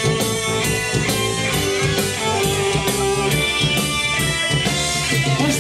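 Live rock band playing with no vocal: a steady drum-kit beat with guitar and held notes.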